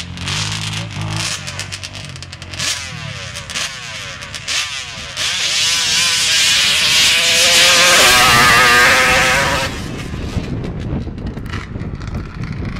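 Three-cylinder engine of a custom Cheetah quad, idling at first, blipped up and down a few times, then held at full throttle for about four and a half seconds with its pitch climbing. Near the ten-second mark it drops off sharply to a lower, rougher sound.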